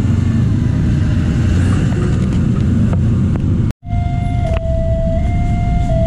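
A forklift's engine runs as it drives past, over a low rumble of road traffic. After a cut about 3.7 s in, a railway level-crossing warning signal starts: a steady electronic alarm tone that steps back and forth between two close pitches about every 0.7 s, warning of an approaching train.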